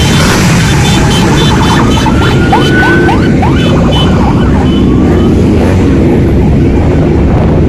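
Parade motorcycles and moving traffic make a loud, steady rumble with heavy wind noise on the microphone. Several short rising chirps sound over it about two to three and a half seconds in.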